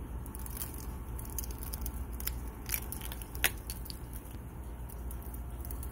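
Ice glaze on shrub leaves crackling and snapping as a hand bends and handles the leaves: a handful of sharp, crunchy clicks, the loudest about three and a half seconds in, over a steady low rumble.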